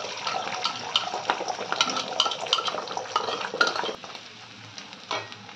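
Beaten eggs sizzling in hot oil in a metal kadai, with quick clicks and scrapes of a wooden spatula against the pan as the egg is scrambled. The sizzle drops off about four seconds in.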